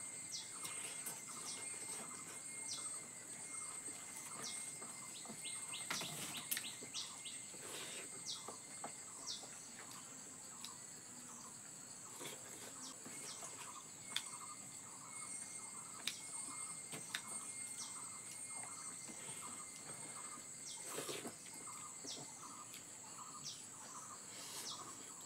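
Rural outdoor ambience: a steady high-pitched insect drone with birds chirping, including a short call repeated about twice a second through the second half. A few faint clicks stand out.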